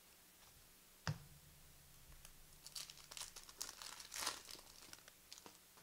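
A trading card pack wrapper crinkling as it is torn open, in a run of crackly bursts over the second half, after a single sharp tap about a second in.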